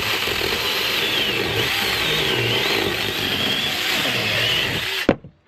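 Handheld electric mini chainsaw running and cutting through a branch, its high motor whine wavering up and down as it works, then cutting off abruptly about five seconds in.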